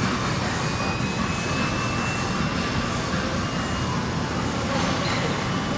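Steady industrial din of a car assembly plant: even machinery noise with a faint high whine in the first few seconds.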